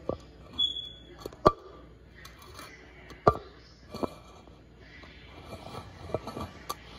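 Clear plastic cup being handled over a trapped spider, giving sharp clicks and taps every second or so, the loudest about a second and a half in and about three seconds in, with light rustling between.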